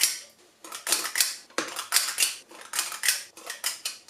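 Metal ice cream scoop scraping soft-frozen strawberry ice cream from the metal freezing bowl of an ice cream maker and clinking against a ceramic serving bowl. An irregular run of short scrapes and clinks, about three a second.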